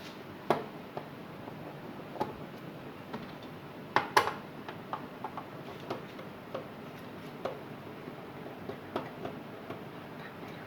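Light metallic clicks and clinks at irregular intervals as a Dell computer power supply is taken apart by hand, with a louder double clink about four seconds in.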